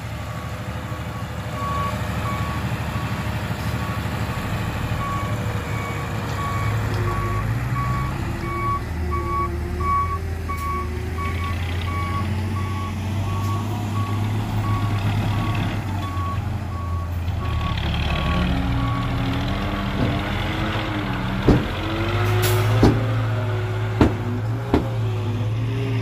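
A dump truck's diesel engine runs steadily while its reversing beeper sounds about twice a second as the bed tips its load of soil. The beeping stops about three-quarters of the way through, and a few sharp knocks follow near the end.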